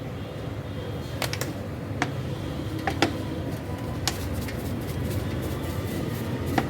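Workshop background of steady low hum with about six sharp clicks or taps scattered through it, as of small carburettor parts and tools being handled during cleaning.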